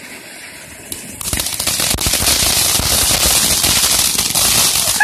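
Ground fountain firework ('Flutterby') spraying sparks with a steady hiss, then about a second in breaking into loud, rapid crackling that keeps going.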